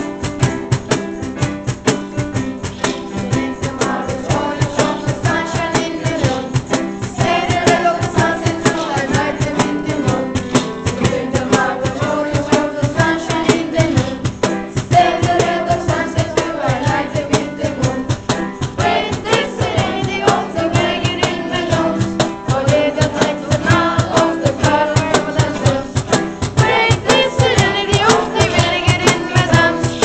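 A song: voices singing over instrumental accompaniment with a steady, fast beat. The voices come in about four seconds in.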